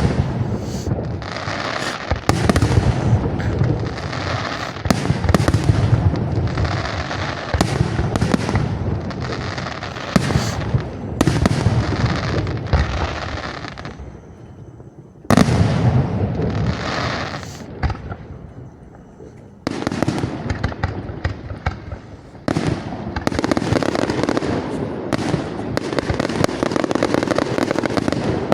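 Aerial fireworks display: a dense run of shell bursts and crackling, with brief lulls before new volleys start sharply about halfway through and again about two-thirds in.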